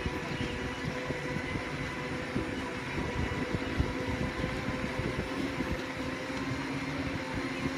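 Segway personal transporters' electric motors and gearboxes whining steadily at cruising speed, a constant pitch with several overtones, over a low rumble of wheels and wind.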